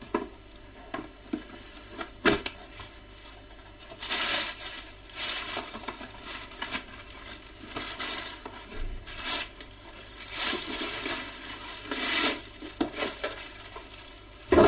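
Toy packaging being torn and crinkled open by hand: a sharp click at about two seconds in, then a run of rustling tears and crinkles from about four seconds in.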